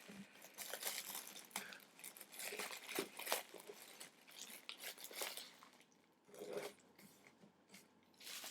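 Wrapping crinkling and tearing in quick, faint crackles as a small package is unwrapped by hand, thinning out after about five seconds.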